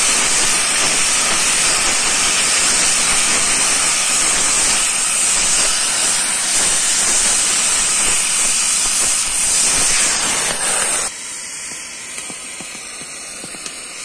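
Gas cutting torch hissing loudly and steadily as its flame and oxygen jet cut through a steel rail. About eleven seconds in the sound drops sharply to a quieter steady hiss.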